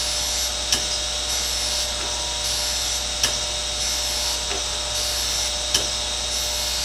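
Chevalier 2A618 hydraulic surface grinder running, its wheel grinding a steel workpiece as the hydraulic table traverses: a steady hum and hiss, with a sharp tick about every two and a half seconds.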